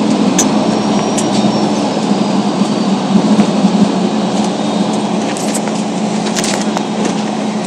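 Inside an airport apron bus on the move: the steady drone of its engine and tyres, with scattered rattles and knocks from the cabin fittings.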